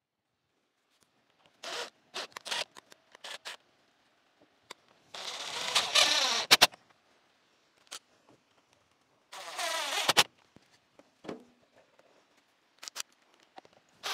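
Cordless driver running screws through a steel joist hanger into a wooden ledger board: a few short trigger pulls early, then two longer runs of a second or so each, about five and nine seconds in, each ending with a sharp click.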